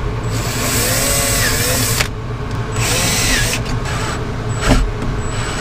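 Yellow cordless drill whirring into a fiberglass cabin panel in two bursts, the first nearly two seconds long and the second about a second, with a sharp knock near the end.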